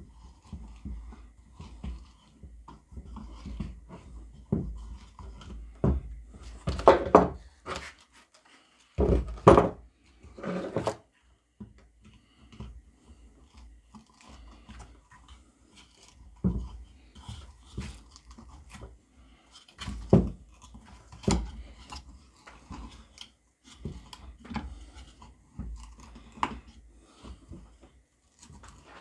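Spade bit of a Victorinox Venture Pro pocket knife being turned by hand to bore into wood, giving irregular scraping, creaking and clicking. A few louder knocks come about a quarter to a third of the way in and again around two-thirds.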